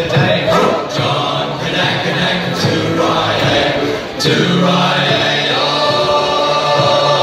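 A choir of men's voices singing a sea shanty together, loud and steady.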